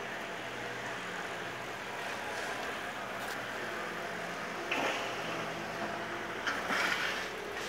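Engine of a work machine at tram-rail works running steadily, with two short bursts of harsher noise, about five and about six and a half seconds in.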